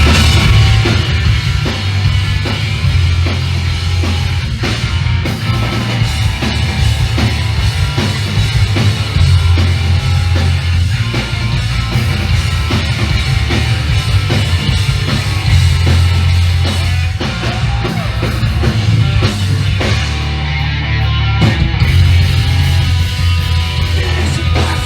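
Live hardcore punk band playing loud, with distorted guitars, heavy bass and pounding drums.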